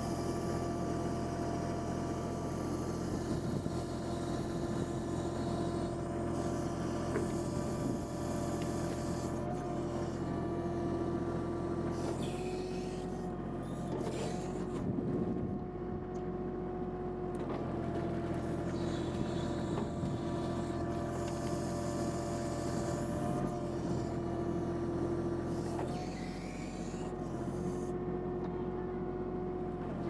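Kubota compact tractor's diesel engine running steadily while its Woods backhoe hydraulics are worked through the control levers. The engine note shifts slightly twice as the hydraulics take load.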